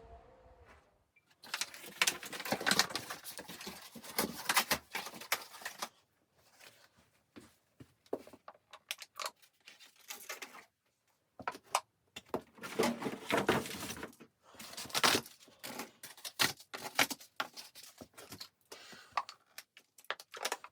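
Bouts of rustling and light clattering, as things are handled close by, starting about a second and a half in and broken by short pauses.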